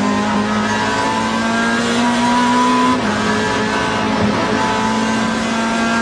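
Alfa Romeo racing car's engine heard from inside the cockpit, accelerating with its pitch rising, dropping sharply at an upshift about three seconds in, then climbing again.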